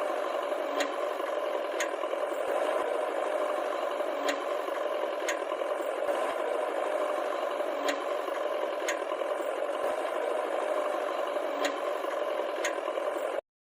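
A battery-powered toy vehicle's small electric motor and plastic gearing whirring steadily, with sharp clicks in pairs about a second apart. It stops abruptly near the end.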